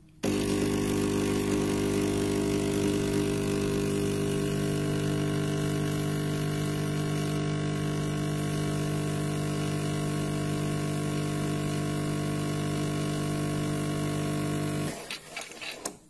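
Klarstein BellaVita espresso machine's pump humming steadily while it pushes water through the portafilter to brew coffee. It starts suddenly and cuts off about a second before the end, followed by a few faint clicks.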